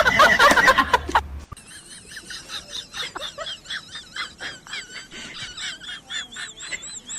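A loud mixed burst cuts off suddenly about a second and a half in. A bird follows with rapid, repeated high chirps, several a second, each rising and falling in pitch.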